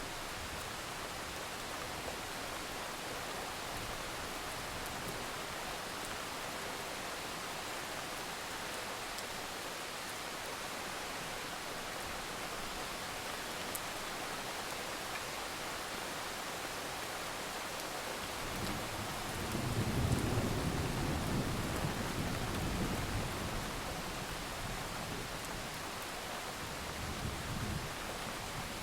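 Steady rain hissing throughout, with a roll of distant thunder rumbling up about two-thirds of the way in and fading over several seconds, then a fainter rumble near the end.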